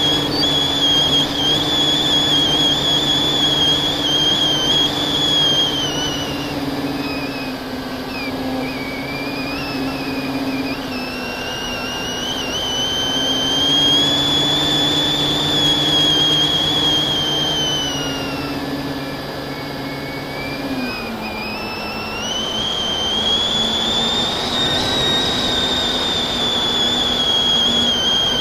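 FPV quadcopter's electric motors whining, the pitch rising and falling with the throttle. It dips about a quarter of the way in and again about two-thirds through, then climbs back, over a lower steady hum.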